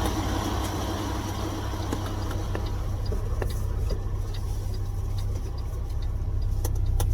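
Heavy truck's engine idling with a steady low rumble, with a few light clicks and knocks scattered through, two sharper ones near the end.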